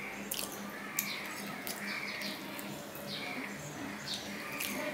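Fingers tearing flaky paratha and mixing it into chicken curry on a steel plate: repeated crackly clicks and wet squelching over a steady low hum.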